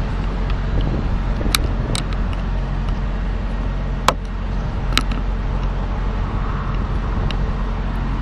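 Semi truck's diesel engine running steadily at low speed while the tractor-trailer is pulled forward to reposition it, with a few sharp clicks scattered through.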